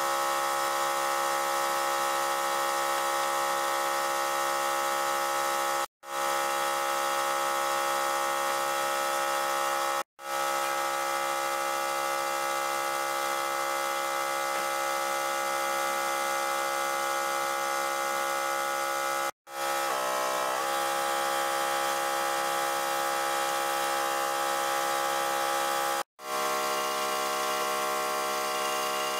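Wood lathe running with a steady, many-toned whine. It cuts out abruptly four times and comes straight back.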